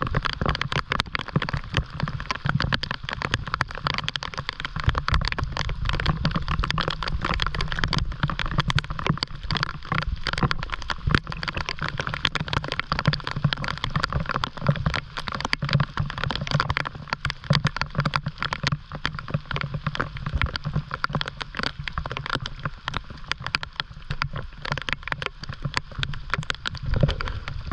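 Heavy rain shower pelting a river's surface among mangroves: a dense, steady patter of raindrops, with many close, sharp drop hits.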